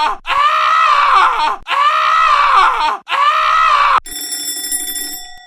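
A looped cartoon scream sound effect, the same cry of about a second and a quarter played three times back to back. About four seconds in it cuts off and a steady electronic tone of several pitches takes over, fading near the end.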